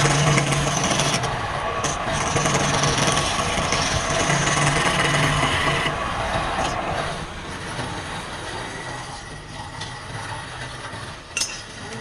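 Wood being turned on a lathe: a cutting tool scraping the spinning wood over the low hum of the lathe. The cutting eases off about seven seconds in, and there is a single sharp click near the end.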